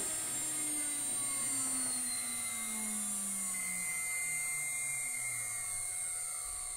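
CNC router spindle motor coasting to a stop after the cut, its whine falling slowly in pitch, with a steady high-pitched whine running beside it.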